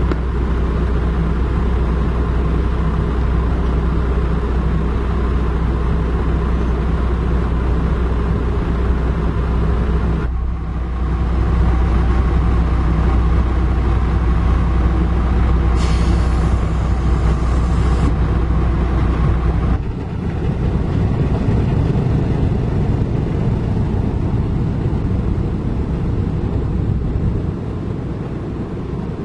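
Heavy diesel engine running steadily with a deep hum. The sound shifts abruptly about ten and twenty seconds in, and a hiss comes in for about two seconds in the middle.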